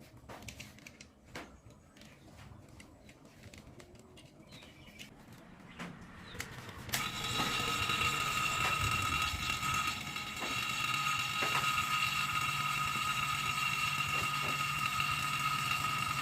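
A few faint clicks and handling knocks, then about seven seconds in a machine starts up suddenly and runs steadily, with a low hum, a hiss and a high steady whine in two pitches.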